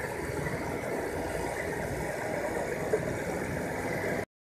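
Suzuki Wagon R hybrid's three-cylinder petrol engine idling steadily, just started on fresh oil after an oil change. The sound cuts off suddenly near the end.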